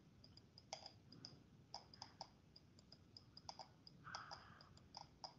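Near silence broken by about a dozen faint, irregular clicks from a pointing device as handwriting is drawn on the screen.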